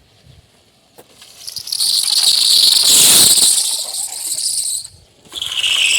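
Bicycle tyre squealing high-pitched as it skids, twice: a long squeal that swells from about a second and a half in and fades, then a second one starting near the end.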